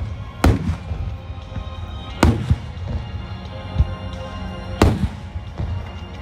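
Large aerial firework shells bursting with deep booms, three loud ones about two seconds apart and a few softer thumps between, over music playing on the show's loudspeakers.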